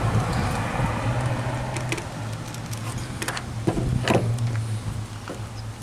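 A steady low mechanical hum underneath, with a few short scraping clicks about three to four seconds in as a knife trims the inside of a rubber vacuum hose.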